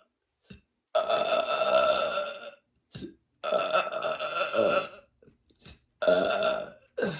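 A woman belching: three long burps, each a second or more, with a short one between the first two and another right at the end. The gas comes from a litre of sparkling water she has drunk.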